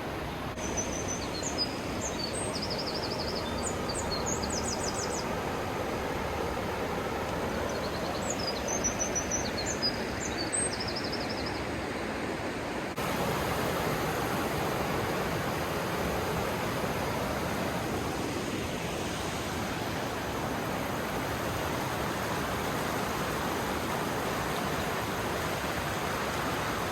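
Rushing river water, a steady noise, with a small bird giving quick, high chirping trills twice in the first half. About halfway through, the water sound cuts to a slightly louder rush.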